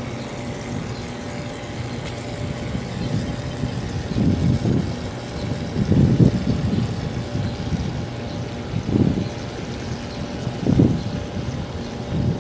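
A steady mechanical hum, like a motor running, with a few louder low rumbles about four, six, nine and eleven seconds in.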